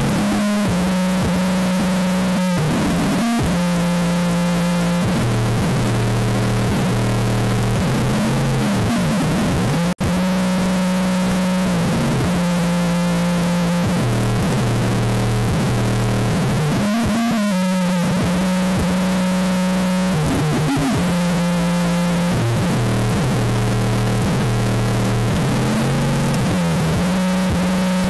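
Bass-heavy music played loud through an iLive subwoofer for a bass test, its deep notes held long and repeating in a steady pattern. The sound cuts out for an instant about ten seconds in.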